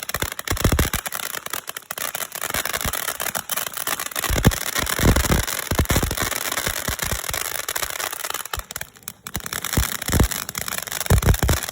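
Consumer fireworks going off in a rapid run of crackles and pops over a hiss, with several dull low thumps.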